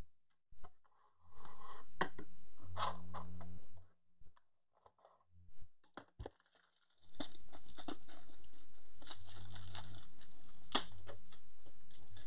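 Bursts of rustling, crackling noise, like handling of plastic or packaging, in two long stretches with a quieter patch of scattered clicks between them.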